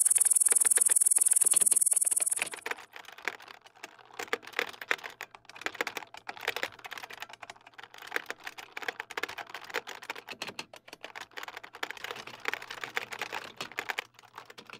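A loud, high-pitched electronic whine with a fast pulse cuts off about two seconds in. It gives way to rapid typing on a computer keyboard, with dense irregular key clicks over a faint low hum.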